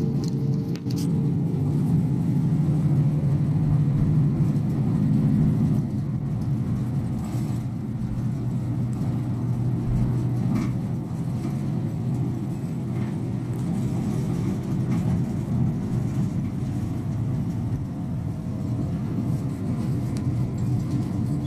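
Hino Poncho small bus's diesel engine and drivetrain running at road speed, heard from inside the passenger cabin. It eases slightly about six seconds in.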